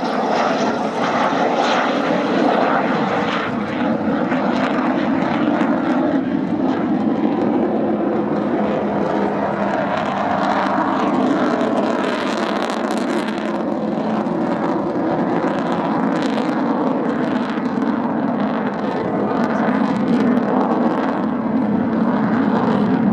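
Avro Vulcan XH558's four Rolls-Royce Olympus turbojets, heard loud and steady as the delta bomber flies over, with a crackling edge through the noise.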